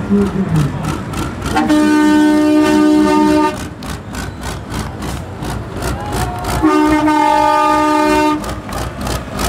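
Air horn of a Magirus-Deutz pulling truck sounding two long blasts of about two seconds each, two tones together, the first about one and a half seconds in and the second near the end. A diesel engine runs underneath.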